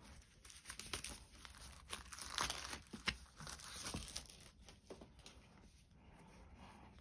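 Faint crinkling and crackling of thin clear plastic film as it is slid off a cardboard product box and crumpled, with small taps of fingers on the box; busiest in the first few seconds, then quieter.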